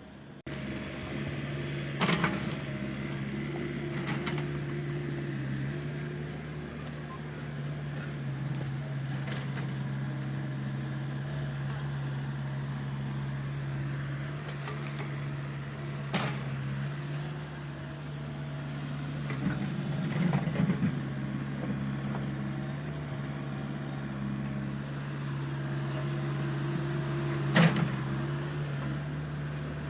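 Heavy diesel engine of earthmoving machinery running at a steady speed, with a few sharp knocks over it, the loudest near the end.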